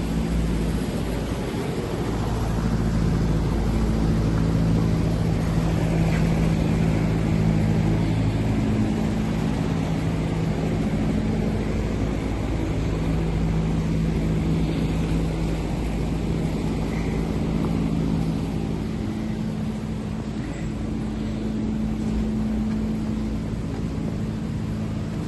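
Cri-Dan HT24 CNC lathe running under power: a steady machine hum whose low tones shift in pitch a few times.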